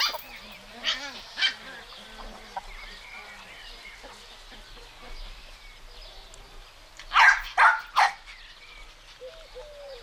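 Puppies barking in short, sharp yaps: a few in the first second and a half, then three in quick succession about seven seconds in. Faint bird calls run underneath.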